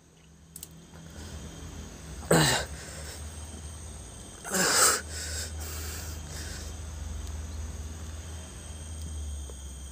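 A man coughing harshly twice, about two and a half and five seconds in, over a low steady rumble.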